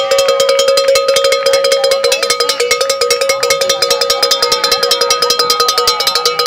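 A cowbell shaken hard and fast, clanging in a rapid, even rhythm close by, with a steady ringing tone under the strikes.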